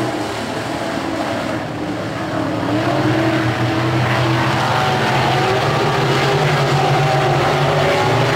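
Several winged 305 sprint cars' V8 engines running at speed around a dirt oval, heard as a layered, distant drone. It eases a little at first and swells again about three seconds in as the field comes round.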